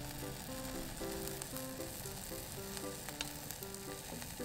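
Beaten egg for a rolled omelette sizzling steadily in a non-stick pan, under a light background melody.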